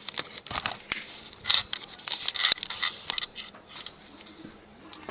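Handling noises: a run of irregular clicks, taps and short rustles, with two sharper clicks about a second in and about halfway through.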